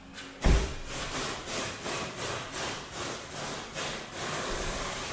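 A car door shutting with a thump about half a second in, followed by a regular rasping rub about twice a second that stops a little before the end, leaving a steady hiss of background noise.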